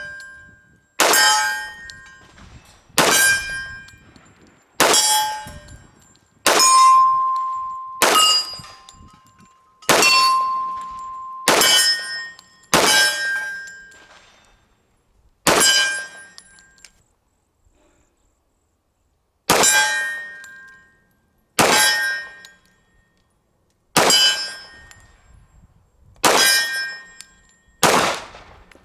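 .45 ACP pistol shots on steel targets: about fourteen sharp reports at a slow, steady pace, one every one and a half to two seconds, each followed by the ring of struck steel plates. There is a pause of about four seconds in the middle of the string.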